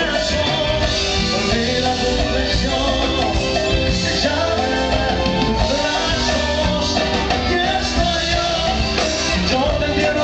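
Live band music with a singer on microphone, loud and continuous, recorded from within the audience.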